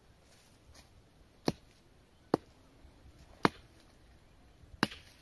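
Four sharp knocks, like chopping strokes, spaced roughly a second apart.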